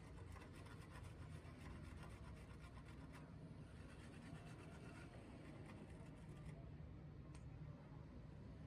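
Faint, rapid scratching clicks over a low steady hum; the scratching stops about six and a half seconds in, and a single click follows near the end.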